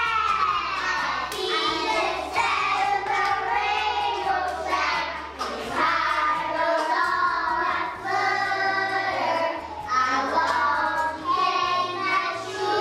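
A group of young children singing together in unison.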